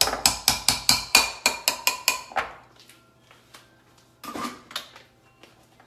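A kitchen utensil clinking rapidly against a dish, about five ringing knocks a second for about two and a half seconds, then a shorter bunch of knocks about four seconds in.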